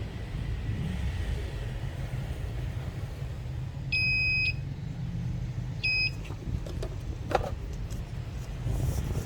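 Two electronic beeps, a half-second one about four seconds in and a shorter one near six seconds, over a steady low rumble, with a single sharp click a little after seven seconds.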